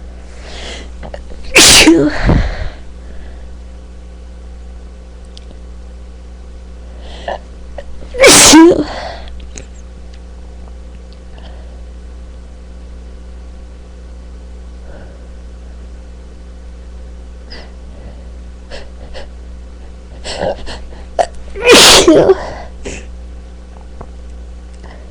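A person sneezing three times, loud and sudden, each sneeze led by a drawn-in breath: one near the start, one about eight seconds in, and one near the end, the last after a few small catches of breath. A steady low hum runs underneath.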